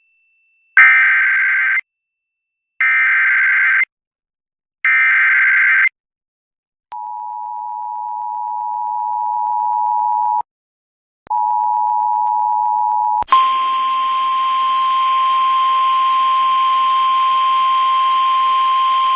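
Emergency alert tones. First the SAME data header: three short bursts of shrill warbling tones about a second apart. Then the two-tone EAS attention signal rises in level, breaks off briefly and resumes. About 13 seconds in, the NOAA Weather Radio single-pitch warning alarm tone starts, steady over radio hiss, heralding a severe thunderstorm warning.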